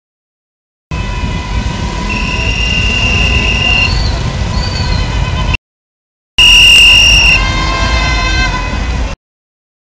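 Noise of a street vehicle caravan: engine and traffic rumble under long, steady high-pitched tones, the loudest a piercing note about two seconds in and again after the middle. The sound cuts out to complete silence three times.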